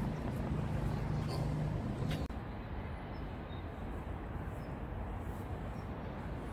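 Steady outdoor city background noise with a low hum. About two seconds in, the sound changes abruptly to a duller, steady noise.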